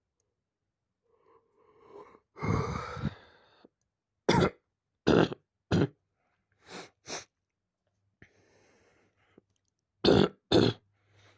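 A person coughing. It opens with a drawn-out throat-clearing cough, then comes a run of short coughs: three loud, two softer, a faint breathing pause, and two more loud coughs near the end.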